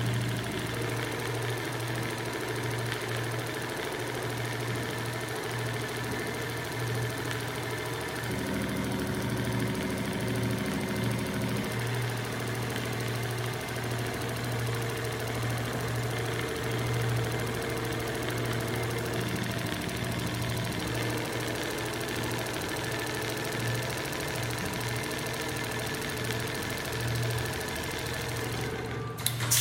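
Zoje large-area computerized sewing machine running steadily, stitching a pattern with a constant motor hum. Near the end a sudden loud hiss cuts in.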